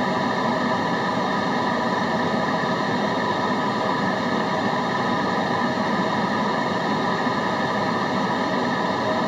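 Steady white-noise track: an even, unchanging hiss with no breaks or changes in level, fuller in the lower and middle range than at the top, with a few faint steady tones inside it.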